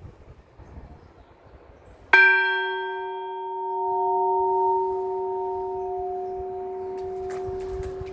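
A large church bell struck once, about two seconds in. It rings on with a long, slowly fading hum: the high overtones die away within a second or two, the deep tone keeps sounding, and the ring swells and eases once as it decays.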